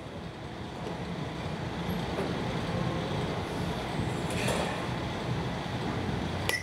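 A bat hits a pitched ball near the end: one sharp crack with a short ringing ping. Under it runs a steady rumbling background noise.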